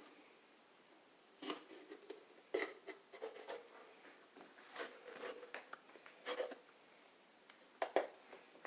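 Kitchen shears snipping through the top of a red bell pepper around the stem: a handful of short, separate cuts and crunches, irregularly spaced with quiet pauses between them.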